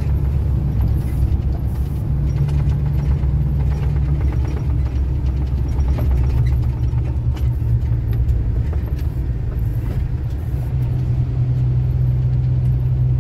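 Steady low drone of a heavy diesel truck's engine and road noise while driving; the engine note shifts a little a few times.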